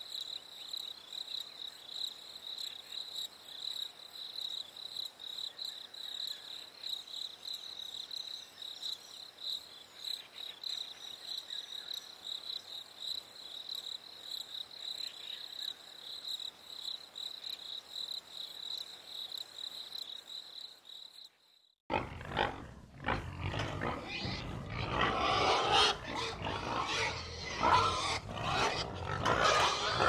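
Crickets chirping in a steady high trill; then, after a brief gap about two-thirds of the way through, a herd of pigs grunting and crying, much louder and irregular.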